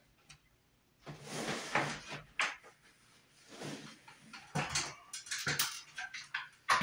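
Scraping, rustling and knocking from hands-on installation work at a wall-mounted exit light, ending in a run of sharp clicks and knocks.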